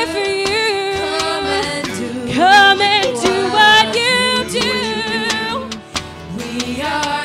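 Live worship band music: a woman singing long, wavering notes over acoustic guitars and keyboard.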